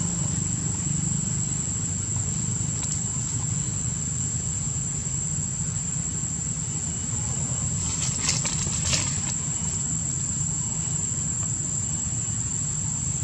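Outdoor ambience of insects droning with one continuous high, thin tone over a steady low rumble, broken by a couple of short crackles after about eight seconds.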